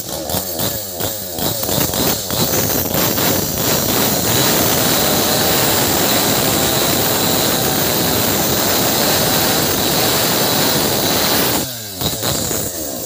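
Maestro Plus CS6500L two-stroke gasoline chainsaw, revved in a string of short throttle blips for the first few seconds. It then runs steadily at full throttle as the chain cuts into a large gnarled wooden stump, and drops back off the throttle near the end.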